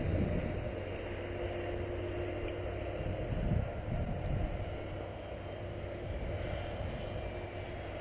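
Strong wind buffeting the microphone in gusts, with the faint steady drone of a distant electric RC aerobatic plane's motor and propeller running through it.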